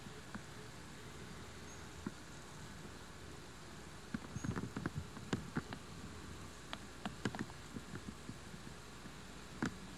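Steady hiss with short, irregular clicks and taps, bunched from about four to eight seconds in and once more near the end.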